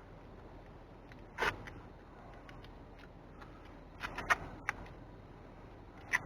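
Tape being pulled off the roll and worked onto the end of the boat's shift cable: a few short rasps and clicks, the loudest about a second and a half in, with a cluster of clicks around four seconds.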